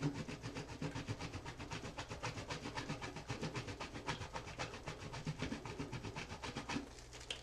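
A bar of soap grated on a small handheld grater in quick rhythmic rasping strokes, about five a second, stopping shortly before the end.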